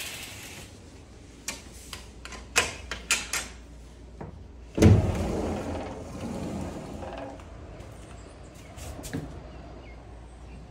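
Sliding glass balcony door being unlatched and slid open: several sharp clicks about one and a half to three and a half seconds in, then a loud thud about halfway through as the door runs open, followed by a steady hiss.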